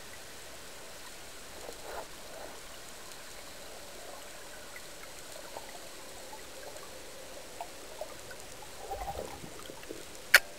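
Underwater ambience: a steady hiss with scattered faint clicks and crackles, then one sharp, loud click about ten seconds in.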